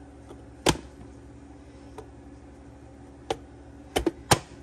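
Sharp plastic clacks of a hand-operated push-down vegetable chopper being struck to dice onions: one loud whack about a second in, a fainter click or two later, then two loud whacks in quick succession near the end.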